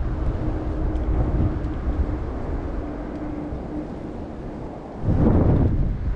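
Strong wind buffeting the microphone with a low rumble, and a loud gust about five seconds in. A faint steady hum runs underneath in the first half.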